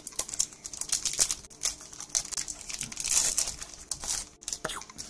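Foil Pokémon booster pack being torn open, its wrapper crinkling and crackling in the hands.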